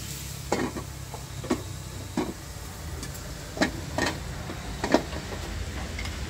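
Kitchen utensils knocking and clinking against cookware, about six sharp irregular knocks spread over a few seconds, over a steady low hum.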